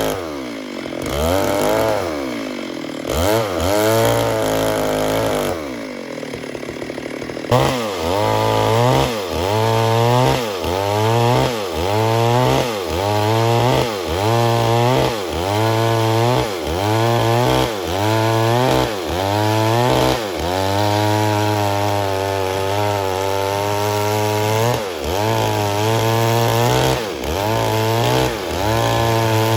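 Stihl MS 382 two-stroke chainsaw cutting wood. The engine speed wanders for the first several seconds, then dips and recovers in a steady rhythm a little slower than once a second as the chain bites and eases in the cut.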